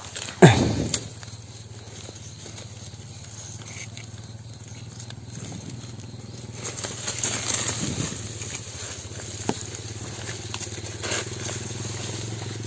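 Dry twigs and brush rustling and crackling as a wire-mesh cage trap is reached for and handled, with a loud thump about half a second in. A steady low hum runs underneath.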